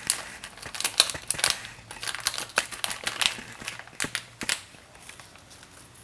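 Crinkling and crackling of thin plastic packaging handled by hand, in a quick run of sharp crackles that dies away after about four and a half seconds. It is most likely the wrapping of a new replacement flex cable being opened.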